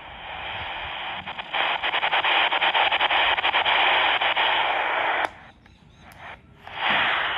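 XHDATA D-220 portable radio playing static through its own speaker: a steady hiss with crackles. It grows louder about a second and a half in, cuts out a little after five seconds and comes back near the end.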